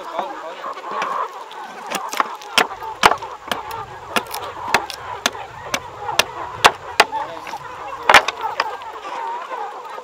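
Chickens clucking, with repeated sharp knocks of wood being struck, about two a second from about two seconds in. The loudest knock comes near the end.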